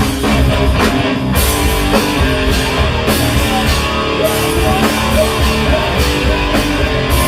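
Live rock band playing loudly: electric guitar over a drum kit beat.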